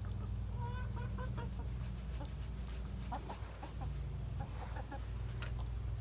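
Backyard chickens clucking, with short calls about a second in and again around three and five seconds, over a steady low hum.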